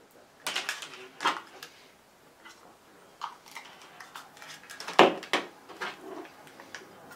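Handling noises from a small hobby battery charger: a series of irregular hard clicks and knocks as it is picked up and handled. The loudest knock comes about five seconds in.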